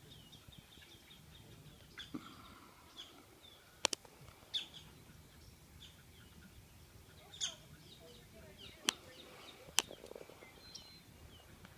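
Small birds chirping and calling in short, repeated high notes, with a few sharp clicks standing out above them.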